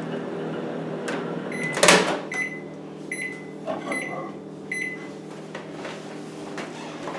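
Panasonic inverter microwave oven humming, its door popped open with a loud clunk about two seconds in. It gives five short high beeps, evenly spaced under a second apart, as the heating cycle ends, and the hum carries on after the door opens.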